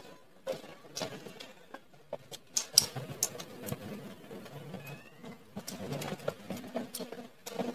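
Eating sounds: chewing of greens and octopus close to the microphone, with irregular light clicks and taps of chopsticks against the sauce bowl and tray.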